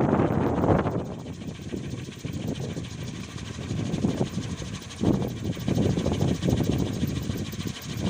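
Wooden kolecer, a wind-driven propeller on a pole, spinning in the wind and giving a steady, rapidly pulsing whirr. Wind buffets the microphone in gusts, easing about a second in and picking up again around five seconds in.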